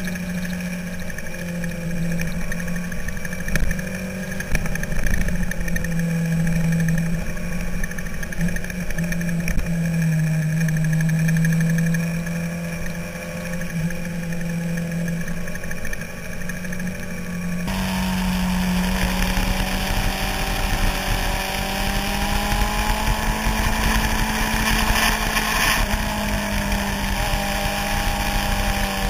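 Inline-four sportbike engine running at road speed through a series of bends, its pitch rising and falling a little with the throttle, over the rush of wind on an onboard camera. About 18 s in, the sound changes abruptly to a louder, windier mix with a camera cut.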